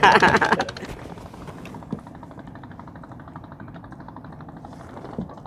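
A boat engine running steadily with a rapid, even chugging. A man's voice trails off in the first second, and there is a single short knock about two seconds in.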